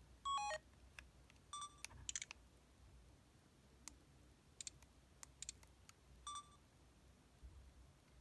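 Short electronic beeps and key tones from an LG LB6300 mobile phone's built-in sound effects: a quick falling run of notes just after the start, then a handful of separate short beeps and clicks spaced a second or so apart.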